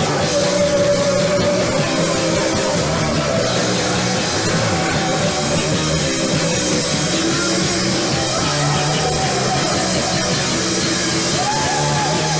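A punk rock band playing live and loud, without a break.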